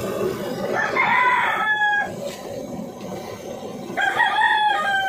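A rooster crowing twice, each crow a little over a second long with a slightly falling pitch, about three seconds apart. A steady hiss carries through the first second.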